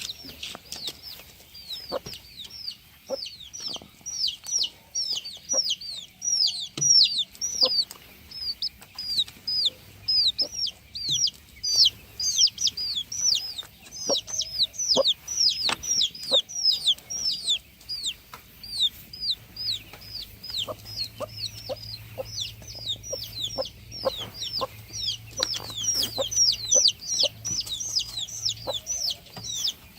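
Broiler chickens cheeping without pause: a dense stream of short, high, falling peeps, several a second, with scattered sharp taps among them.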